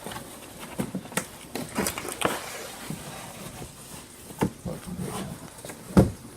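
Unpacking and handling noise of a cardboard parts box: a string of irregular knocks and clatters, with the loudest thump about six seconds in.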